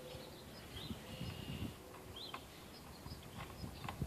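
Faint bird chirps, short calls one to two seconds apart, over low rustling from hands working in the engine bay.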